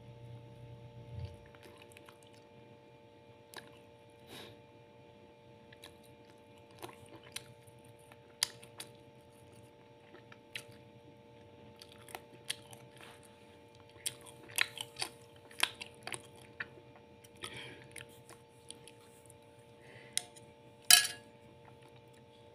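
Close-up eating sounds: a person chewing food with small wet clicks and crunches coming irregularly. Near the end comes one sharp clink, a spoon knocking against the ceramic plate.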